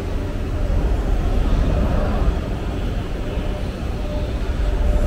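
A subway train running, a steady low rumble.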